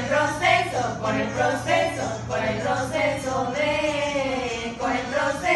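A group of young women singing a song together in Spanish, several voices in unison.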